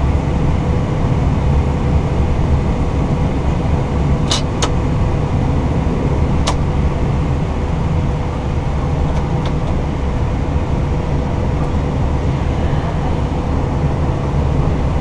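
Steady low rumble inside an Airbus A320 cockpit as the airliner rolls off the runway onto a taxiway after landing, with a faint steady hum under it. A few sharp clicks sound between about four and six and a half seconds in.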